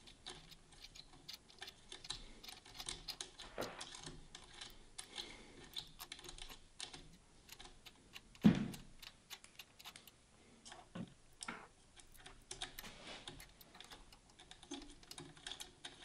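Faint metal clicks and ticks of a hex key working the top screws of scope rings, snugged only lightly so the scope can still be levelled. One louder knock about halfway through.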